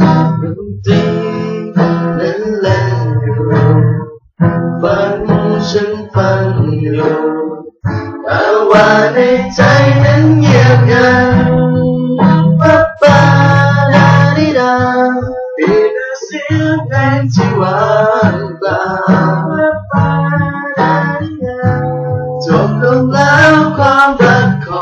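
Acoustic guitar strumming chords while young men sing a Thai pop ballad along with it.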